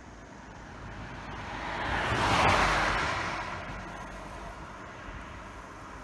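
A car passing by: road noise swells to a peak about two and a half seconds in, then fades away.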